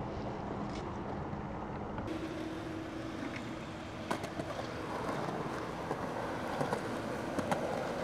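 Skateboard wheels rolling over concrete: a steady rumble with a few faint clicks from the board.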